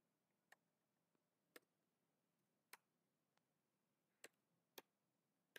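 Faint keystrokes on a computer keyboard, single keys pressed about once a second at uneven intervals, about six clicks in all, over near silence.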